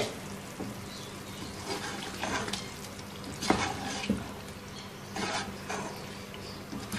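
A metal slotted spoon stirs chicken koftas in thick, creamy curry gravy in a nonstick pan, with soft squelching and a few scrapes and knocks of the spoon against the pan, over a faint sizzle on low heat.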